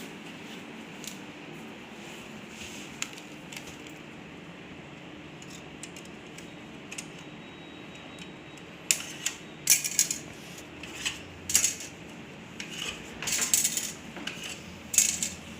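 Light clicks and clatter of small hard parts being handled, with a few scattered clicks at first and then a busy run of sharp clicks from about nine seconds in, over a steady low hum.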